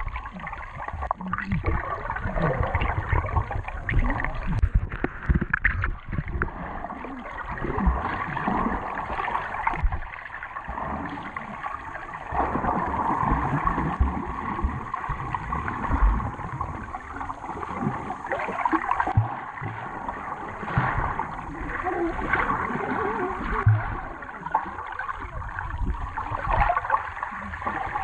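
Sea water gurgling and sloshing right at the microphone of a camera carried by a snorkeller, with irregular low thumps throughout.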